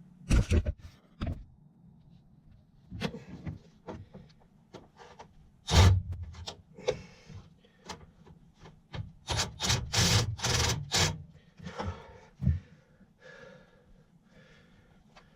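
Irregular knocks, bumps and rubbing from a person clambering about and handling things in a cramped attic. The loudest thuds come about half a second and six seconds in, with a dense run of knocks around ten seconds in.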